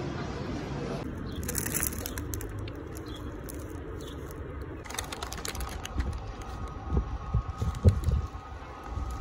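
Babble of a crowded pedestrian street for the first second. Then a brown paper bag crinkling in the hand in short crackling bursts, with low knocks near the end.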